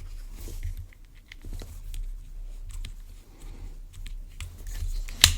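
Nako Flight Feather Cormorant FF01 BFS baitcasting reel being handled, with small scattered clicks, then one sharp click near the end from its spool release (thumb bar) engaging free spool.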